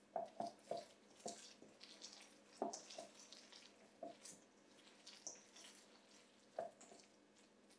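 A hand kneading and squeezing a wet mass of soaked pretzel bread in a stainless steel bowl: faint, irregular wet squishes. A quick run of them comes in the first second, and the loudest is about two and a half seconds in.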